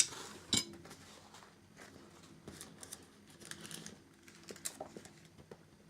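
A clamp being taken off: a sharp click, a second one about half a second later, then faint rustling and small knocks as the paper layers and wooden pieces are handled.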